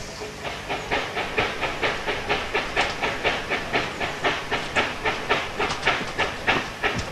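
Fowler steam ploughing engine working under load, its exhaust chuffing in a steady rhythm of about three to four beats a second that starts about a second in, with hiss from the steam.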